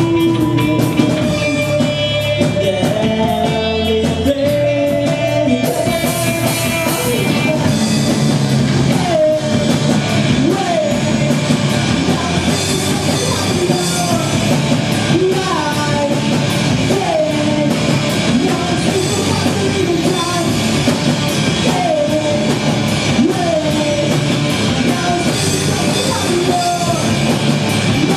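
Live rock band playing loud: amplified electric guitars, bass and drum kit, with sliding pitched notes over a steady wash of cymbals.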